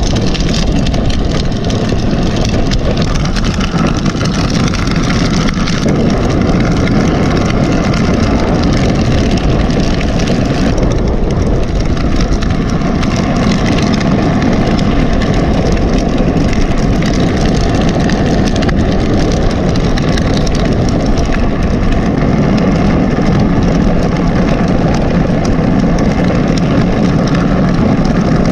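Steady, loud rushing of wind over a bike-mounted action camera's microphone, mixed with bicycle tyres rolling on pavement, as a bicycle is pulled along at a run by a husky.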